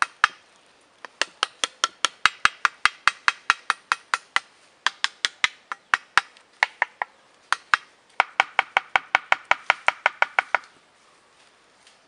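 Rapid knocking on a grey PVC-pipe stingless bee hive, about five knocks a second in three runs with short breaks. The tapping drives the agitated bees out through the entrance into a bottle trap fixed over it.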